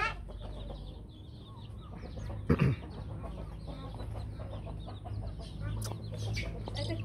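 A crowd of young chicks cheeping, many short high calls overlapping continuously, with one louder, lower sound about two and a half seconds in.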